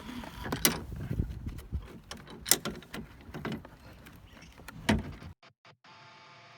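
Scattered clicks and knocks of car interior trim and seat-belt hardware being handled and fitted, the sharpest about two and a half seconds in and again near five seconds. Then the sound cuts off abruptly and a faint steady tone follows.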